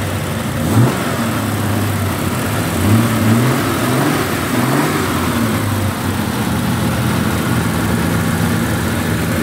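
1969 Triumph TR6 straight-six engine idling with the bonnet open, given a few brief blips of the throttle in the first five seconds, each a short rise in pitch, then settling back to a steady idle. It runs sweetly.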